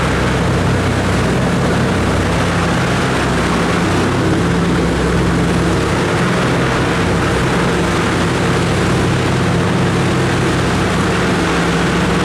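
Loud, steady cabin noise inside a Douglas C-47 Skytrain in flight: its twin radial engines and propellers running evenly, a constant low hum of several steady tones under a rushing noise.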